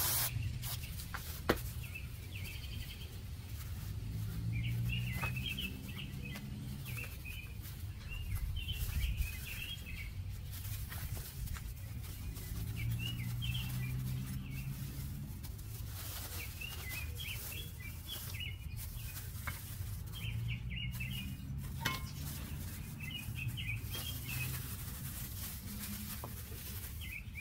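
Small birds chirping in short, repeated calls over a low steady hum, with a few light clicks.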